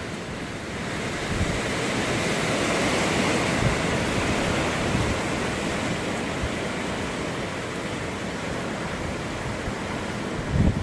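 Hurricane-force wind blowing steadily outdoors, a noisy rushing that swells into a stronger gust a couple of seconds in and then eases, with a few low thumps of wind hitting the microphone.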